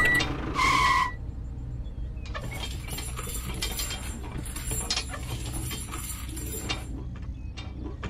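A short beep just under a second in, then a small metal chain clinking and jingling for several seconds as it is handled and hooked between two toy tractors, over a low steady hum.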